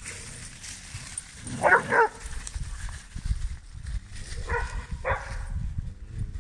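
A dog barking: two short barks, then two more about three seconds later, over a low irregular rumble.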